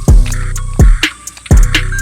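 Background hip hop-style music with a heavy beat: a deep, booming kick drum that drops in pitch on each hit, about one every 0.7 seconds, over crisp hi-hat ticks.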